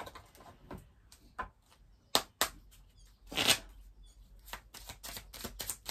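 An oracle card deck being taken from its cardboard box and handled: a series of light taps and clicks of the box and cards, with a brief louder rustle of the cards sliding about three and a half seconds in.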